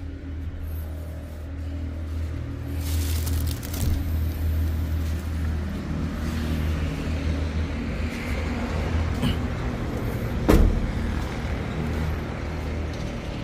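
Large diesel truck engine idling with a steady low hum. A single heavy knock sounds about ten and a half seconds in.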